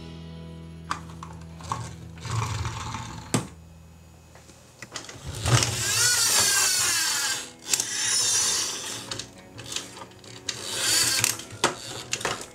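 Battery toy police cars playing electronic sound effects: a low steady hum, then loud warbling, siren-like bursts, the longest about halfway through and shorter ones after it.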